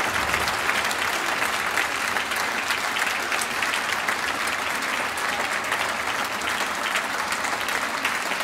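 Large audience applauding steadily: a dense, even clatter of many hands clapping.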